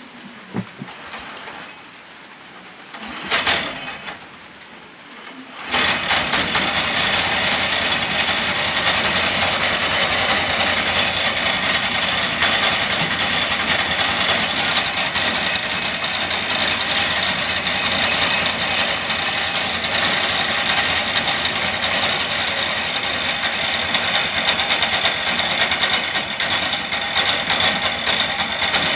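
Robin small petrol engine, converted to an outboard motor, starting up: a brief loud sound about three seconds in, then the engine catches suddenly about six seconds in and runs steadily and loudly.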